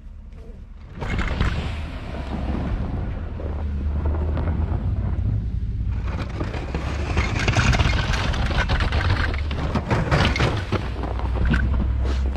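Pickup truck with a front snow plow driving through deep snow: a loud, steady, low engine rumble mixed with noise, starting about a second in.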